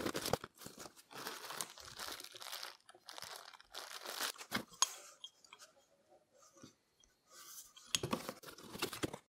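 A cardboard box being unpacked by hand: packing tape being cut and torn, then plastic wrap crinkling and a styrofoam insert being handled. The result is a string of irregular rustles, tears and crunches, busiest near the end.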